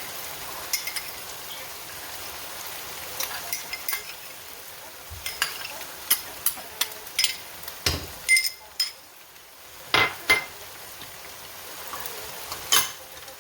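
Food sizzling in a pan while a spoon stirs and clinks against the pan, with a run of sharp metallic clinks from about five seconds in.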